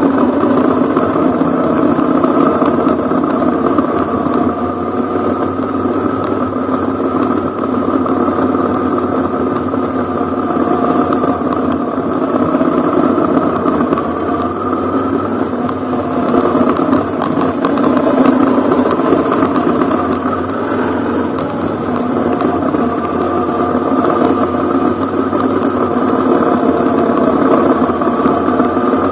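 Ducati Hypermotard's L-twin engine running steadily while riding a dirt and gravel road, its pitch rising and falling gently with the throttle, with a light rattle and clatter from the rough surface.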